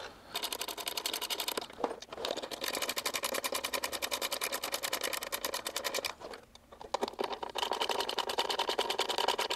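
Ratchet wrench clicking rapidly as the bolts holding a data-logger module to its mounting tray are tightened, in two runs with a short pause about six seconds in.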